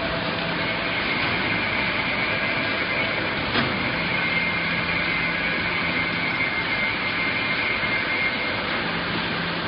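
Bag-palletizing robot line running: steady machine noise from the robot arms and roller conveyors, with a faint high whine through most of it and one sharp click about three and a half seconds in.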